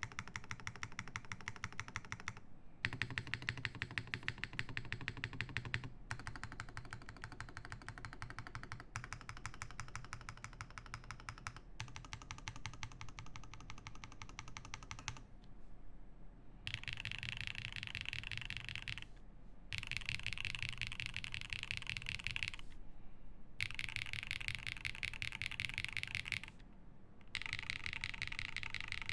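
Typing on a Frog TKL mechanical keyboard with lubed Zaku switches, an aluminium plate, plate and case foam and GMK keycaps: rapid keystrokes in bursts of a few seconds separated by short pauses. From about halfway the bursts sound brighter and sharper.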